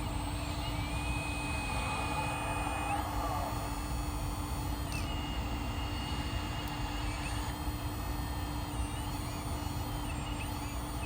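1/14-scale RC hydraulic excavator's electric hydraulic pump running steadily, a constant hum with a thin high whine that steps up and down in pitch several times.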